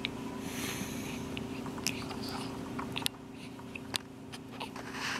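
A baby hiccuping: several short, sharp hics at irregular gaps of about a second, over a steady low hum.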